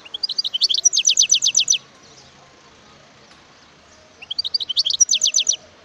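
European goldfinch singing: two short phrases about two seconds apart, each a few varied notes running into a fast string of repeated, falling high notes.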